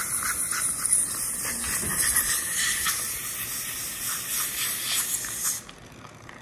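Dental handpiece and suction hissing steadily as water and air spray onto the teeth, with faint clicks of the tip against the teeth; the hiss cuts off suddenly about five and a half seconds in.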